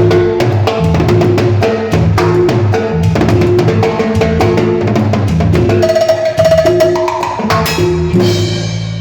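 Cumbia band playing live: a drum kit and percussion keep a busy, even rhythm over a repeating bass line and held melody notes, with a cymbal-like wash about eight seconds in.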